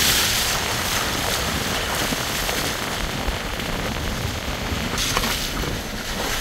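Steady rush of wind buffeting the microphone, mixed with the flow of a flood-swollen river.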